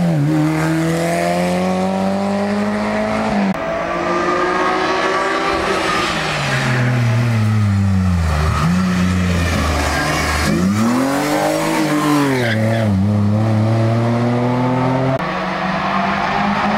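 Hill-climb racing cars passing close one after another at full throttle: a rear-engined Škoda 100-series saloon's engine rises in pitch as it accelerates away, drops at a gear change about three and a half seconds in, then a BMW E30 coupé comes by, its engine note falling, rising and falling again, and another car follows near the end.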